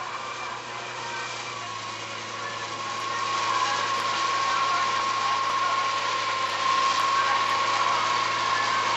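Pinzgauer off-road vehicle's engine running steadily with a constant whine, getting louder about three seconds in.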